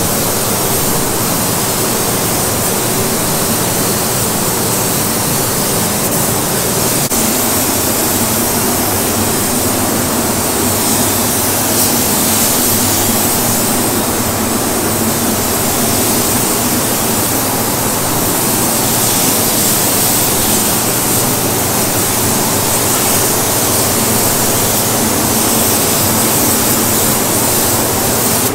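Steady hiss of compressed air through a gravity-feed spray gun laying clear coat, over the even hum of the paint booth's ventilation.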